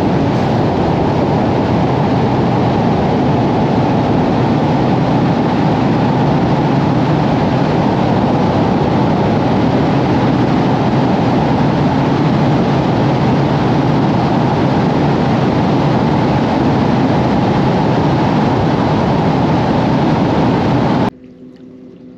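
Skeeter bass boat running at speed: a loud, steady rush of wind, water and motor noise. It cuts off suddenly near the end.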